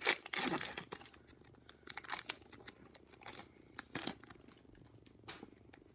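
A trading-card pack wrapper being torn open and crinkled. A dense run of crackles comes in the first second, then scattered single crinkles and rustles as the cards are pulled out.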